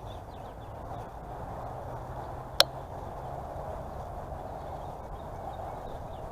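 Steady background noise with faint high chirps scattered through it, and one sharp click about two and a half seconds in.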